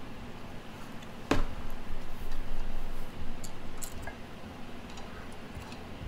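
Hands working on a rear brake caliper bracket: one sharp knock about a second in, then a louder stretch of handling noise and scattered light metallic clicks and ticks.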